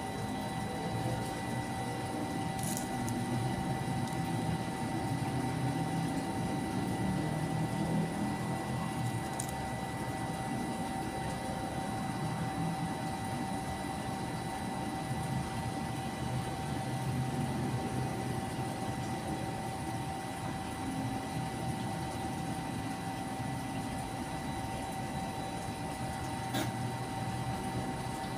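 Steady machine hum: a constant high whine over a low, shifting rumble, with a few faint ticks.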